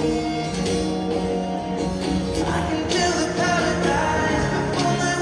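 Live stadium concert music: a singer with guitar and band, heard over the PA from high in the stands.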